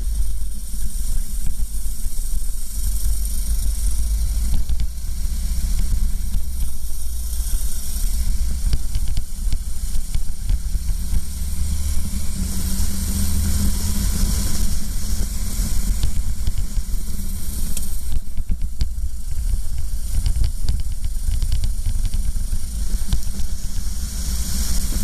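Racing kart engine running at speed, heard from the kart itself as a steady low drone, with a loud rushing hiss of wind over the onboard camera's microphone.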